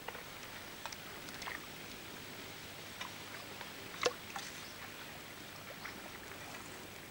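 Small fish splashing and flicking in a plastic bucket of water: scattered light splashes and clicks, the sharpest about four seconds in.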